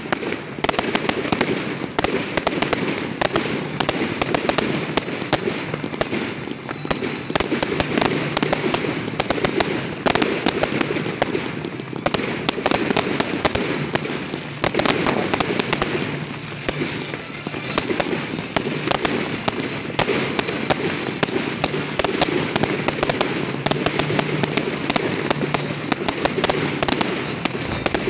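Aerial fireworks bursting overhead without a break: a dense, continuous run of bangs and crackles, many each second.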